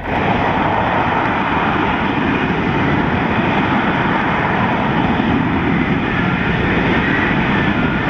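F-35B's F135 jet engine and lift fan running steadily at hover power as the jet hovers and descends for a vertical landing, with a faint high whine in the second half.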